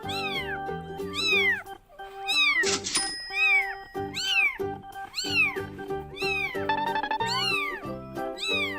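A series of kitten meows, each rising then falling in pitch, about one a second, over background music with a steady bass line; the same run of meows repeats after about six seconds.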